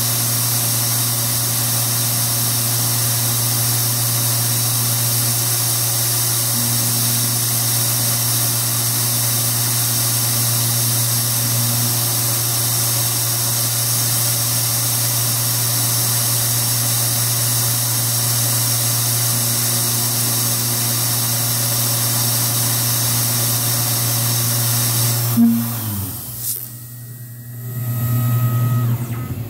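Tormach PCNC 1100 CNC mill engraving copper: a steady spindle hum and hiss that cuts off with a click about 25 seconds in as the job ends, followed near the end by a brief low hum of the machine moving.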